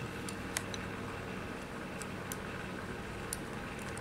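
Steady low background hum and hiss, with a few faint, light clicks scattered through it.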